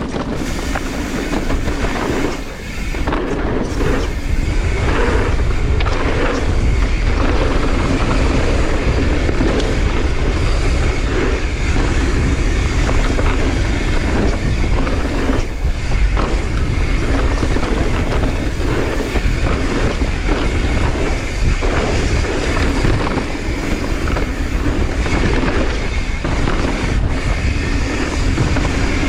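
Mountain bike descending a dirt trail: the tyres rumble over the dirt, the frame and chain rattle and knock over bumps, and wind buffets the microphone.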